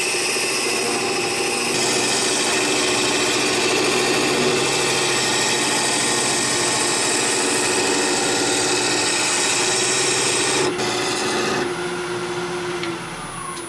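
Wood lathe spinning a mallee burl and epoxy resin knife-handle blank while a turning tool cuts it, a steady scraping hiss of shavings coming off. Near the end the cutting stops and the lathe's motor whine begins to fall in pitch as the lathe winds down.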